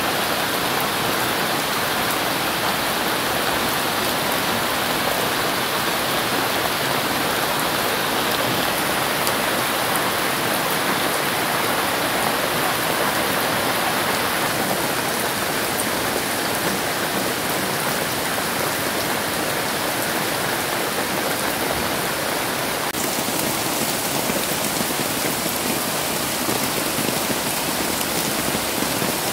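Steady rain falling on tree leaves and foliage, a dense, even patter throughout.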